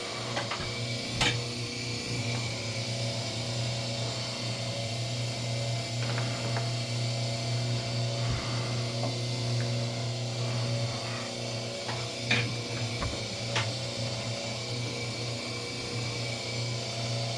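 Electric wire stripping machine running with a steady motor hum as copper wire feeds through its blade, with a few sharp clicks scattered through.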